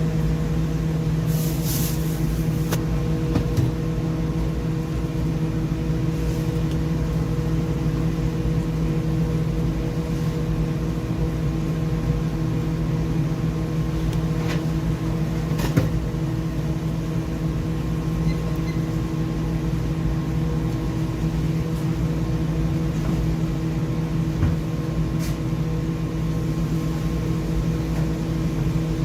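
Steady machine hum with a low rumble, broken by a few brief clicks and knocks.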